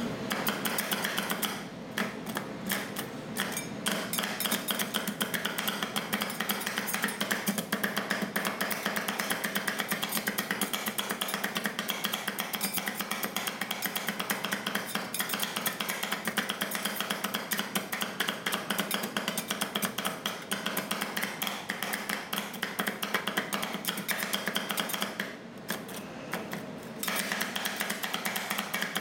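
Metal spatulas rapidly chopping and scraping on a frozen steel ice cream plate, as rolled ice cream is mixed: a steady run of quick metallic strikes, with a short lull near the end.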